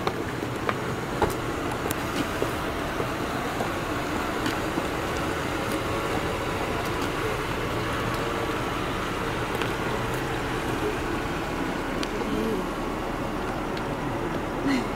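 Steady street background noise with traffic, broken by a few short clicks.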